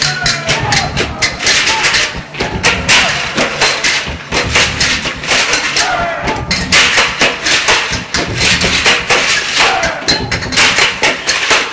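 Stage percussion: rapid, dense strikes on metal oil barrels and other industrial props, mixed with music and voices.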